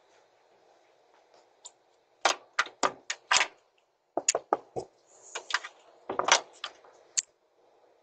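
About a dozen sharp knocks and clatters come in irregular clusters from about two seconds in, over the faint steady hiss of a doorbell camera's microphone.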